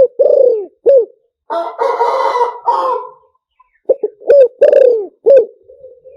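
Spotted dove cooing in a series of short low coos, some with a falling slur. Between the two phrases a rooster crows once, a rough call lasting about a second and a half.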